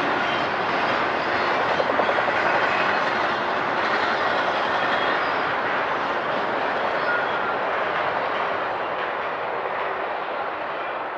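Freight train rolling past, a steady rush of wheels on rail that eases off slightly near the end.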